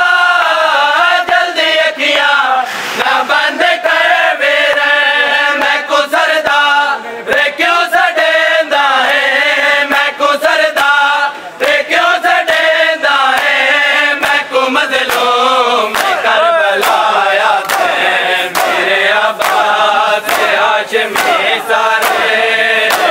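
Men chanting a noha, a Shia mourning lament, in chorus. Through the second half, sharp rhythmic slaps of matam (hands striking bare chests) sound across the chanting.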